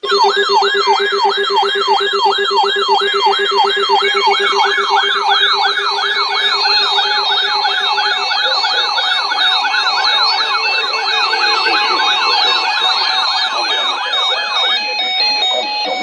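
Emergency alert attention signal for a severe thunderstorm warning: a loud electronic siren-like tone sweeping up and down about three times a second over a steady low tone. From about four seconds in it is layered with a second pattern of quickly alternating tones. The sweeping stops shortly before the end, leaving the alternating tones.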